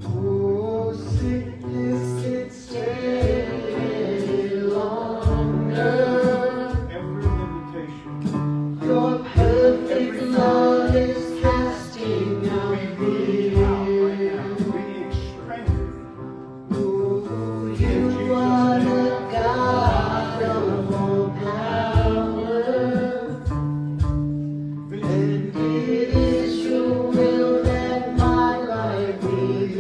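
Worship music: gospel-style singing with a choir of voices over guitar and instruments.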